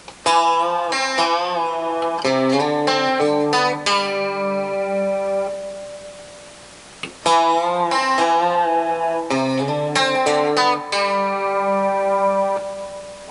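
Instrumental music of plucked, ringing notes, some of them bent in pitch. It dies away around the middle, then starts again about seven seconds in.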